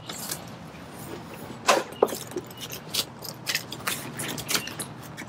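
Scattered clicks and rustling of a vinyl soft-top window being handled and its zipper started by hand, the sharpest clicks about two seconds in.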